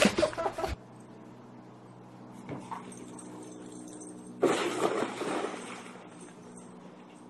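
A person falling through a floating pool cover into the water: a loud splash about four and a half seconds in that fades over a second or so, over a faint steady hum. It is preceded by a brief stretch of loud voices and churning water that cuts off suddenly in the first second.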